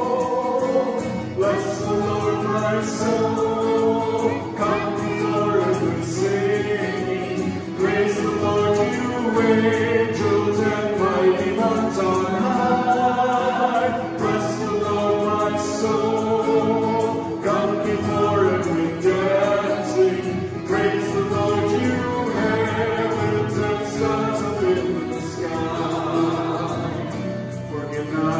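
A worship song sung by a man and a woman to acoustic guitar accompaniment, continuing without a break.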